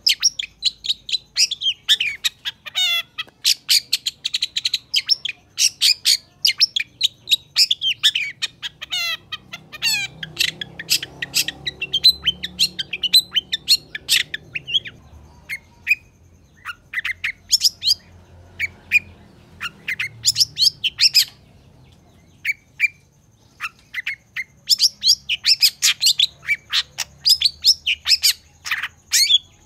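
Long-tailed shrike singing a fast, varied stream of sharp chattering notes and quick trills. The song thins to scattered notes about halfway through, then picks up again near the end.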